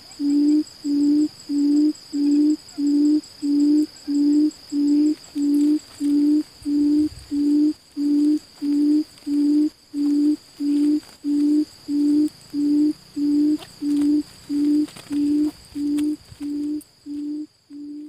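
A quail's low hooting call, repeated very evenly about twice a second, with a thin steady high whine behind it; the hoots fade away near the end.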